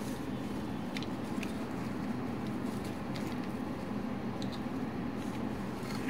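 A few light clicks and taps of small plastic toy doctor-set pieces being picked up and set down by hand, over a steady low background hum.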